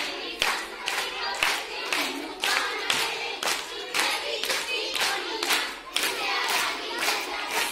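A group of women singing together and clapping hands in time, in an even beat of about two claps a second.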